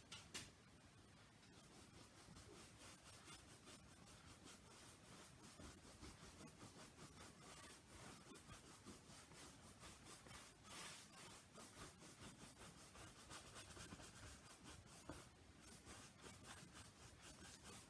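Faint, quick scratchy strokes of a paintbrush rubbing back and forth on canvas, blending acrylic paint.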